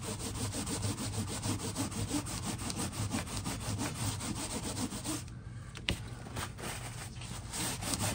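Paper towel rubbed hard back and forth over a tooled leather belt to wipe off antique finish paste, in quick even strokes several a second, with a brief pause and a sharp click about six seconds in. The paste has set a little too dry, so it takes extra rubbing to lift.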